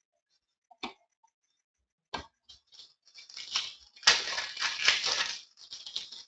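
Trading cards and their packaging being handled: a couple of sharp taps, then about two seconds of crinkling and rustling.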